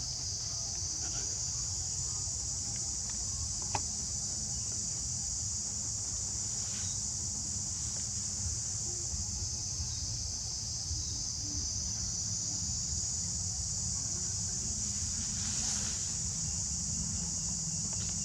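Steady, high-pitched insect chorus, a continuous shrill drone of crickets or cicadas, over a low rumble. One sharp click about four seconds in.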